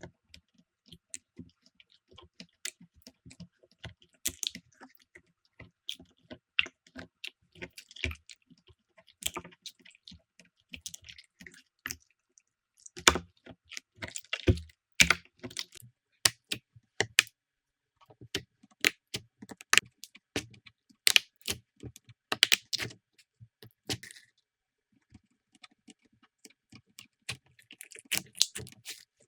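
Slime being squeezed and pressed by hand, giving a run of irregular sticky clicks and pops, with louder clusters partway through.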